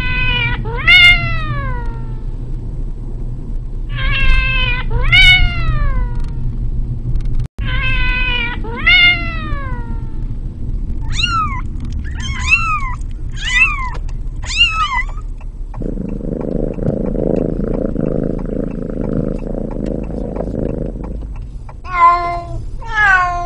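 Hungry cat meowing loudly and repeatedly: long cries that fall in pitch, mostly in pairs, with a run of four shorter, higher meows in the middle. Later come about five seconds of steady noise without meows, then two more meows near the end.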